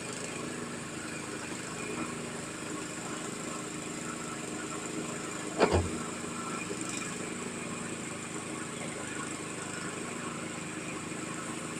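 Small engine of a well-drilling rig running steadily, with one sharp knock about halfway through.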